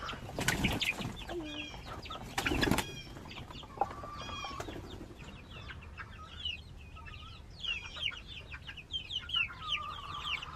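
Chickens flapping their wings as they jump out of the coop door onto a wooden ramp, with two louder bursts of flapping about half a second and two and a half seconds in. Short high cheeping calls from the birds go on throughout.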